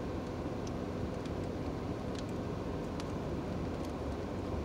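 Steady low rumble of a car interior, with a few faint clicks from a plastic sauce packet being handled.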